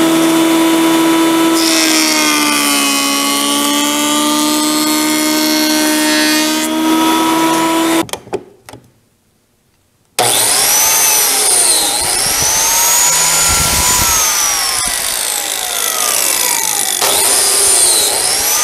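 Benchtop jointer running and planing the edge of a wooden chair-seat board; the motor's pitch sags under load as the board passes over the cutter, recovers, and the machine shuts off about eight seconds in. After a short pause a biscuit joiner runs, its motor pitch dipping and recovering several times as it plunges to cut slots in the board's edge.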